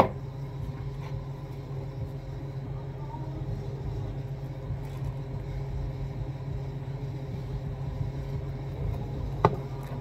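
Steady low mechanical hum, with a sharp tap at the start and another about nine and a half seconds in.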